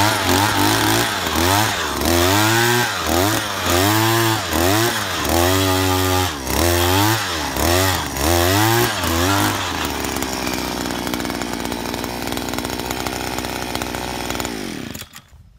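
Oshima 2P earth auger's 49.9 cc single-cylinder two-stroke engine boring into the soil with a 30 cm auger bit, revving up and falling back about once a second. It then runs steadily for several seconds before the sound stops abruptly near the end.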